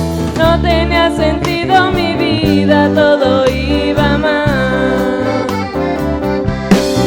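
Live band playing an instrumental stretch of a Christian song, with an accordion carrying the melody over bass guitar and strummed chords in a steady beat.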